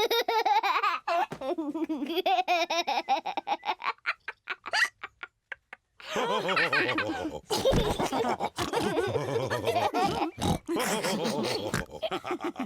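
Cartoon pig characters laughing, with a short break about five seconds in before more laughter.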